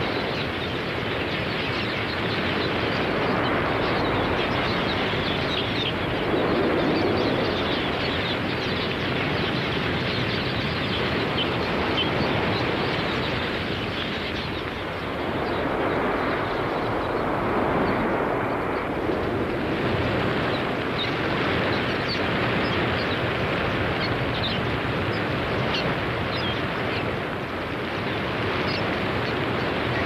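A vast flock of red-billed queleas in flight: a continuous rushing noise of countless wingbeats, swelling and easing, with many small high chirps scattered through it.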